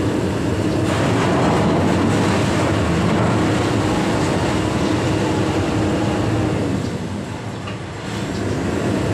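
Heavy machinery running steadily at a rock-crushing plant: the excavator beside the cone crusher and nearby plant equipment. The noise dips briefly about seven seconds in.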